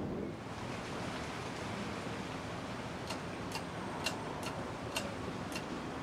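Scotty's Hardware Bellaire ceiling fan running on high speed: a steady whoosh of air from the spinning blades. About halfway through come six light ticks, roughly two a second.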